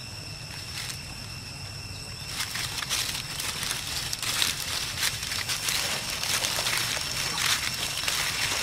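Dry fallen leaves crackling and rustling under footsteps, starting about two seconds in and growing louder, over a steady high-pitched tone in the background.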